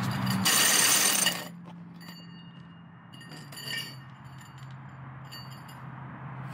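A heavy drill turning a large hole saw through the wall runs loud and hard for about the first second and a half, then drops to a low, steady hum. A few sharp metallic clinks follow.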